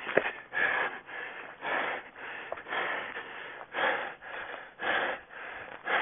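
A running person's heavy breathing, one hard breath about every second, with a sharp click just after the start.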